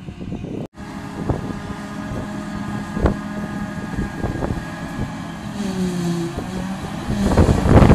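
Claas Jaguar 850 self-propelled forage harvester running under load, picking up and chopping a heavy grass swath, with a steady engine drone and a few short knocks. Wind buffets the microphone, stronger near the end.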